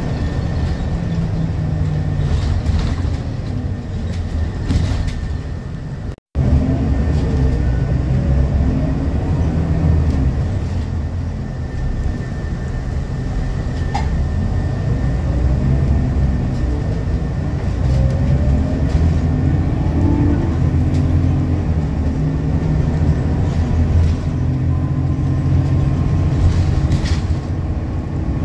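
Scania L94UB bus under way, heard from inside the cabin: its 9-litre five-cylinder diesel pulls through the gears of a ZF Ecomat automatic. The engine note rises and drops with each change, over a steady rumble from road and body. The sound cuts out for a moment about six seconds in.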